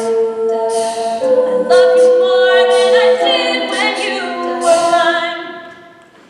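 A cappella vocal group singing in harmony with no instruments, holding long chords that change every second or so, then fading away near the end as the song closes.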